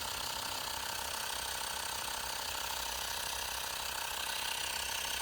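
Xiaomi portable electric air compressor running with a steady, fast, even mechanical rattle from its pump. It runs normally despite having been run over and damaged.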